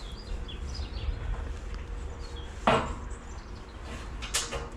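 A hammer striking a nail into timber: one sharp knock a little past halfway, then a few lighter knocks near the end.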